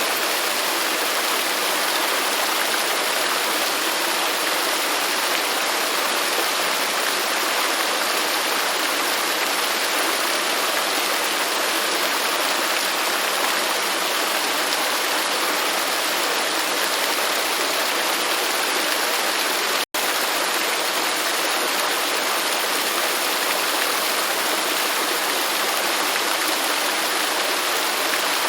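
Waterfall rushing, a steady dense hiss of falling water with no let-up. It cuts out for an instant about two-thirds of the way through.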